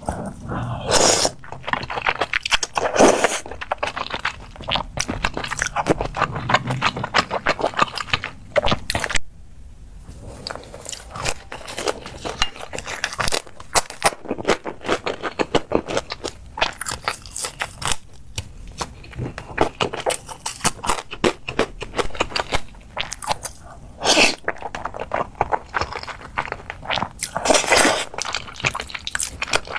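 Close-miked eating: crunching and chewing on crisp food, with sharp louder crunches every few seconds between steady chewing.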